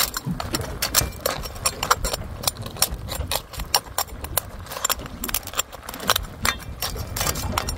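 Metal ladle clinking and scraping against a metal cooking pot while stirring crabs and fish being sautéed: many quick, irregular clinks.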